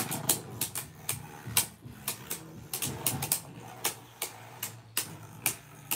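Two Beyblade Burst tops spinning in a plastic stadium and clashing, sharp irregular clacks about three times a second over a low steady whir.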